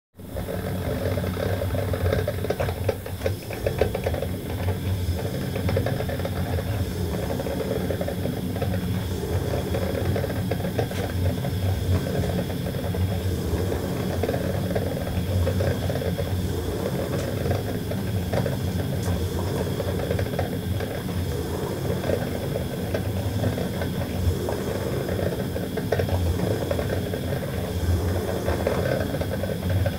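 Coffee maker running steadily with a dense, rattling hiss that starts right at the beginning and keeps an even level.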